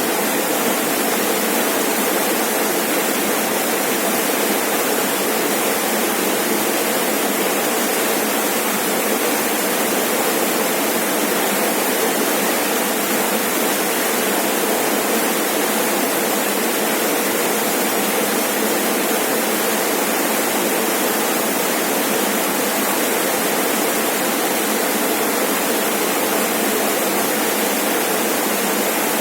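Rainforest waterfall: water falling and splashing in a steady, unbroken rush.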